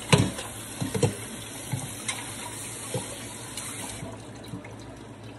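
Kitchen tap running into a sink, rinsing chopped lettuce in a metal colander, with a few sharp knocks of the colander and dishes; the water stops about four seconds in.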